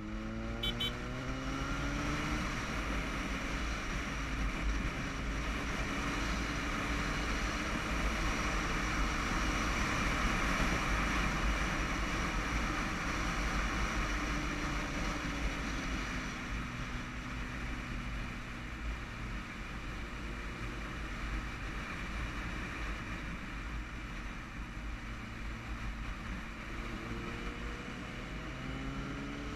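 Motorcycle engine running under way, its pitch rising about two seconds in, easing off around the middle and rising again near the end, under a heavy steady rush of wind buffeting a helmet-mounted camera.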